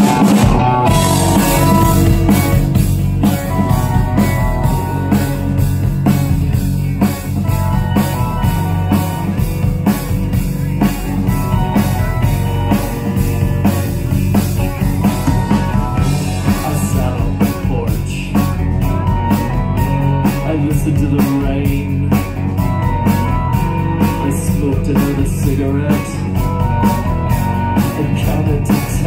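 Live rock band playing at full volume: electric guitars, bass guitar and a drum kit keeping a steady beat, the whole band coming in at once at the start.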